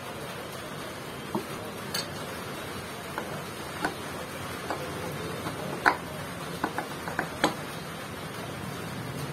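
Light metallic clicks and taps, about a dozen scattered irregularly, as parts of a Honda Click 125i scooter's CVT drive pulley are fitted by hand; the sharpest comes about six seconds in.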